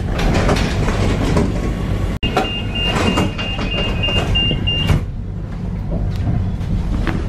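Tram running with a steady low rumble. About two seconds in the sound drops out for an instant, and then a rapid, high electronic beeping signal sounds for about two and a half seconds before stopping.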